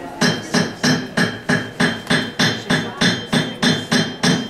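A steady rhythm of sharp strikes, about three a second, each with a short pitched ring.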